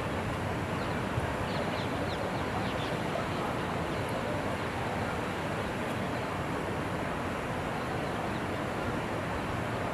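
Steady outdoor rushing noise with a low rumble, even in level throughout, with a few faint high chirps about two seconds in.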